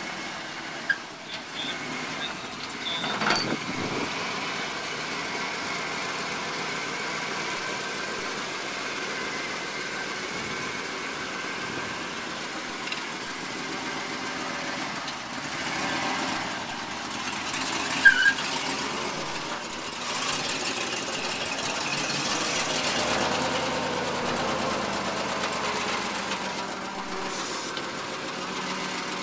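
The 1998 GMC 3500 tow truck's 7.4-litre V8 idling steadily, with a sharp knock about three seconds in and a louder short click about eighteen seconds in.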